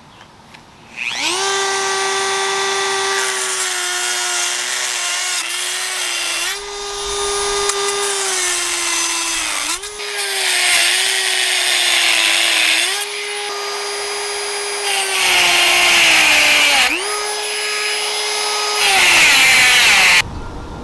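Dremel rotary tool with a cut-off wheel running at high speed and cutting through the steel wires of remesh (welded wire concrete mesh). Its steady whine sags in pitch under load, with a hissing grind during each of several cuts. It spins up about a second in, drops out and spins back up twice, and stops just before the end.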